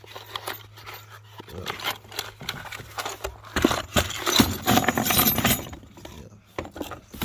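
Irregular clicks, knocks and clatter of hardware parts being handled, busiest and loudest in the middle, over a steady low hum.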